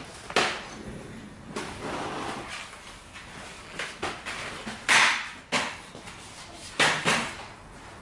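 A few sharp knocks and rustling, scraping handling noises, the loudest about five seconds in and another near seven seconds: latex balloons being worked onto a balloon column and a stepladder being moved and set down.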